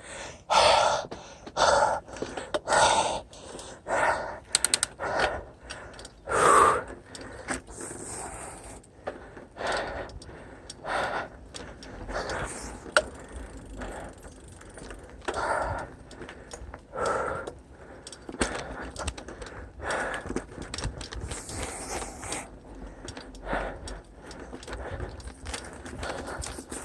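A person breathing hard from the exertion of a hot uphill climb, with loud breaths about once a second at first, coming further apart later.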